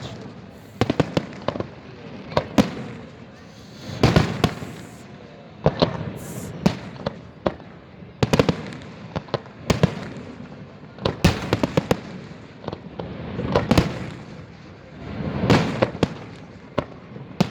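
Fireworks display: a steady run of sharp bangs from bursting shells, some in quick clusters, with several longer crackling swells.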